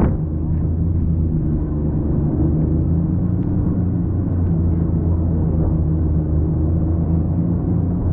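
A vehicle's engine running steadily while driving, heard from inside the cab as a low, even hum. A single knock sounds right at the start.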